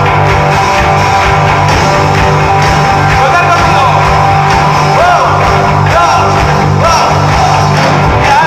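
Live rock band playing loudly with electric guitars, bass and drums. From about three seconds in, a voice sings over it in gliding notes.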